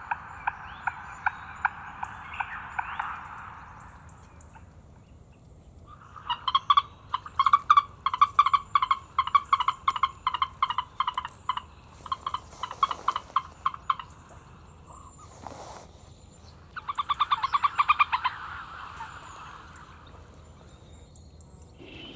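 An animal calling in three bouts of rapid, evenly pulsed notes; the middle bout is the longest and loudest.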